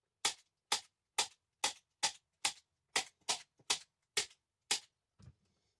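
Staple gun firing staples through upholstery fabric at the edge of a couch cushion: about a dozen sharp snaps, roughly two a second, the last one fainter.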